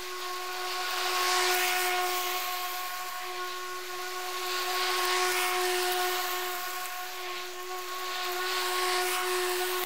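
Stiga Twinclip 950 cordless battery lawnmower running: a steady, even-pitched whine from the electric motor and blades, with a hiss of air. It grows louder and softer slowly a few times as it is pushed across the lawn picking up leaves.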